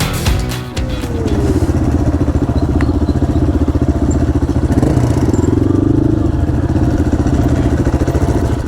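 Motorcycle engine running steadily at low speed. Its pitch drops about a second in and rises slightly around five to six seconds.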